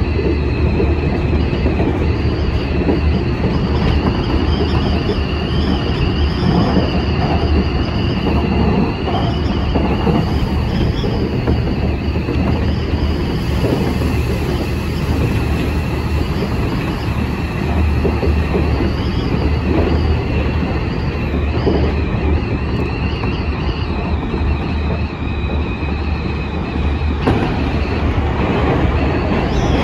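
Semboku Rapid Railway 5000 series electric train running at speed, heard from inside the front car: a steady rumble of wheels on rail with a high, wavering squeal. Near the end the sound changes as a train passes on the other track.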